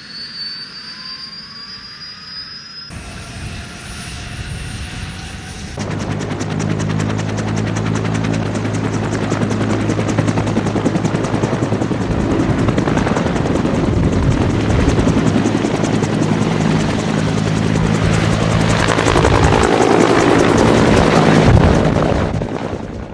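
Bell AH-1 Cobra helicopter: a turbine whine rising in pitch as the engine spools up, then the two-bladed main rotor beating steadily over the turbine's drone. It grows louder to a peak a second or two before the end, then falls away.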